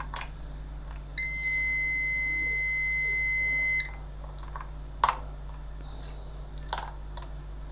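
Digital multimeter's continuity beep: one steady high tone held for about two and a half seconds, starting about a second in, meaning low resistance across the probed points. A few faint probe clicks follow.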